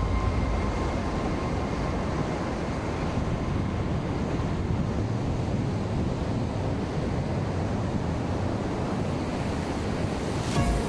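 Ocean surf breaking and washing up on a sandy beach, a steady rush of noise with wind rumbling on the microphone.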